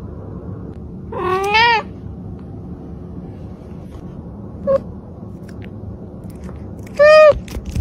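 Domestic cat meowing: a wavering meow about a second and a half in, a short chirp near five seconds, and another short meow near the end, over a steady background hiss.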